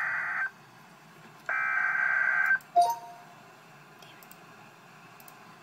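Emergency Alert System SAME header data bursts: two harsh, buzzy screeches, the second about a second long, a second apart. They are followed by a brief blip and then a faint steady hiss.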